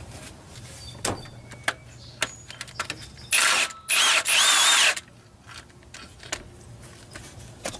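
Cordless impact gun spinning out engine front-cover bolts in two short runs, the first about half a second and the second about a second long, a little past three seconds in. Scattered clicks and knocks of tools on metal come before and after.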